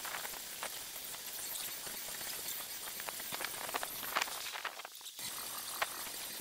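Outdoor ambience: a steady faint hiss with scattered small clicks and ticks.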